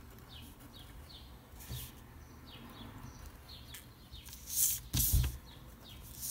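Pencil strokes scratching on paper, the loudest a little after four seconds in and again around five seconds, over faint, quick bird chirps repeating throughout.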